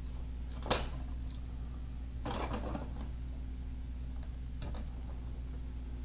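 A hand screwdriver driving a screw through a plastic back plate into a wall anchor: a sharp click about a second in, a scraping grind of the screw turning a little later, and a few light clicks, over a steady low hum.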